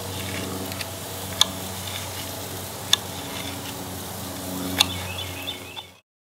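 Steak knife and carving fork clicking against a plate while slicing a grilled steak: a few sharp, separate clicks over a steady low hum, which cuts off suddenly near the end.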